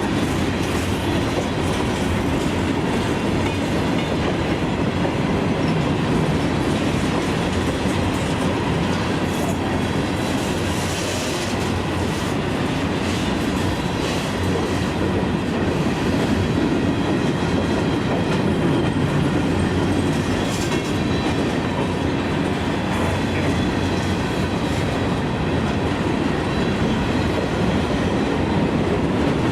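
CSX freight train's cars rolling past, steel wheels running on the rails with a steady rumble.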